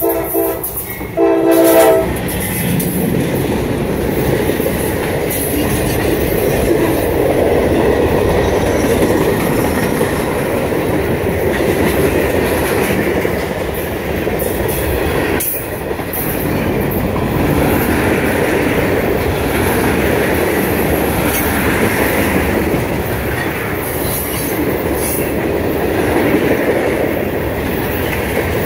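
CSX freight train's diesel locomotive sounding its horn in two short blasts as it draws near, then a long freight train of gondolas and tank cars rolling past close by in a steady loud rumble with the clatter of wheels on the rail.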